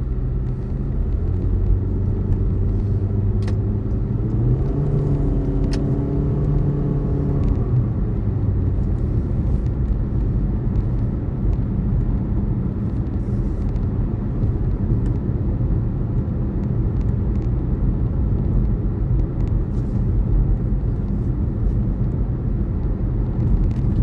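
Car in motion heard from inside the cabin: a steady low rumble of road and engine noise. About four seconds in, an engine note rises and holds for a few seconds, then fades back into the rumble.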